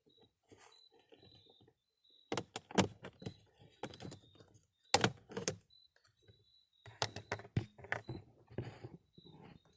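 Hard plastic clicking, snapping and knocking as the power-window switch panel is pried out of the door trim panel, in irregular bursts with rattling between them. The loudest snap comes about halfway through.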